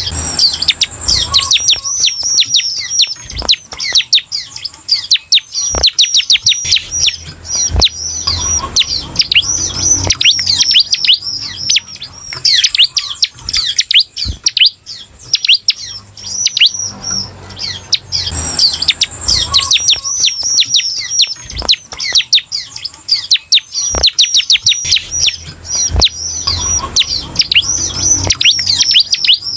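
Bar-winged prinia (ciblek) singing its 'semi' song: a fast, unbroken string of high, sharply downward-sweeping chirps. A few low knocks come through as the bird hops about its cage.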